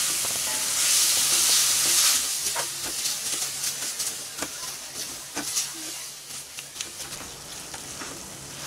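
Eggplant bharta sizzling in a metal kadai while a spatula stirs and scrapes it, with many short scrapes and taps of the spatula against the pan. The sizzle is loudest for the first two seconds or so, then fades and leaves mostly the stirring.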